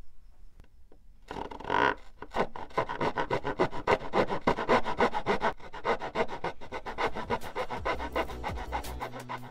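Fine-toothed hobby razor saw cutting through the hardwood spar and balsa at a model airplane's wingtip, with quick, steady back-and-forth strokes. The sawing starts a little over a second in.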